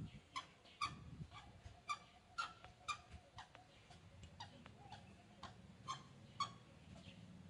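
Short, high animal calls repeated about twice a second, thinning to occasional calls after about three and a half seconds.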